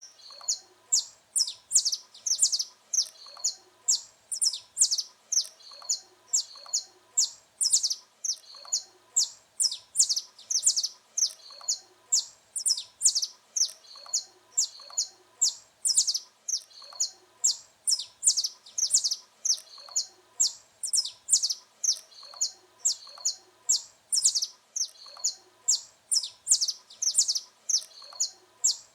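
Saffron finch singing on and on: quick runs of short, high chirping notes, one phrase after another with hardly a pause.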